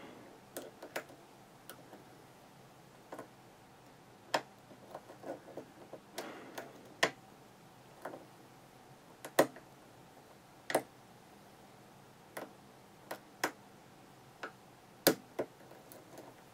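Scattered sharp metallic clicks, one or two a second at irregular spacing, of a hook pick lifting pins in a Sargent pin-tumbler lock cylinder held under a tension wrench: single-pin picking, working the last pins out of a false set.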